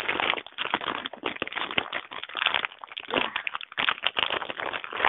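Irregular rustling and crackling handling noise close to the microphone, as something is grabbed and moved about.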